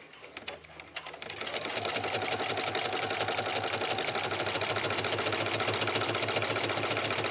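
Electric sewing machine with a walking foot topstitching a fabric strap: quiet at first, it starts about a second in, picks up speed, then runs steadily with a rapid, even stitching rhythm.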